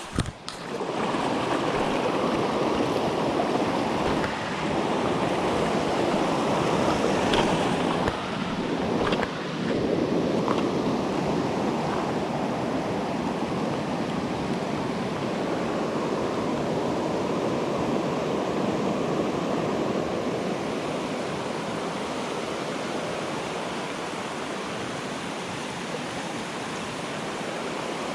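Steady rush of fast-flowing stream water tumbling over rocks, starting abruptly about half a second in.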